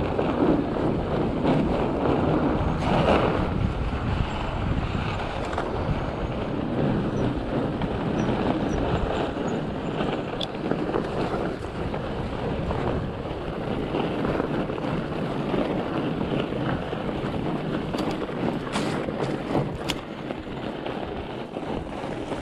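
Fat bike riding along a packed-snow trail: a steady noise of the tyres rolling over snow and the bike rattling, mixed with wind buffeting the microphone. There are a few sharp clicks near the end.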